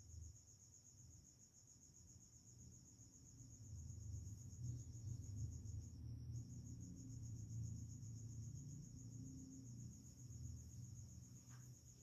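A faint, steady, high-pitched insect trill with a short break about six seconds in, over a low rumbling background noise.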